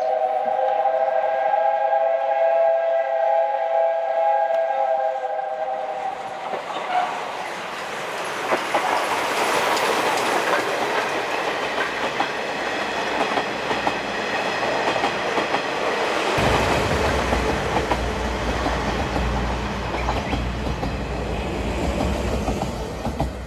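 Whistle of the 8620-class steam locomotive No. 58654, a steady chord of several notes held for about five seconds. Then the train passes close by with a loud rush and wheel clatter on the rails. About two-thirds of the way through, a deep rumble comes in suddenly.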